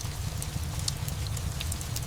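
Steady rain mixed with a crackling fireplace: a continuous hiss over a low rumble, with a few scattered sharp pops.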